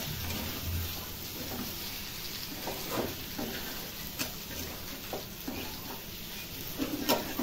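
Masala-coated food frying in a metal pan on a gas stove with a steady sizzle, stirred with a spatula that scrapes and knocks against the pan at irregular intervals, roughly once a second.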